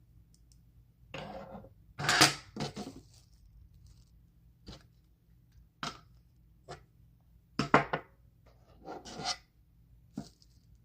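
Plastic wrap and napkin being handled during squishy making: irregular crinkling and rustling with a few sharp taps, loudest a couple of seconds in and again about eight seconds in.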